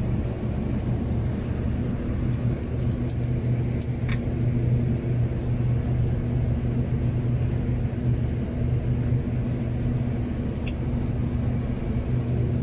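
Steady low hum of a boat's engine running at a constant speed. A few faint clicks come about three to four seconds in and again near the end.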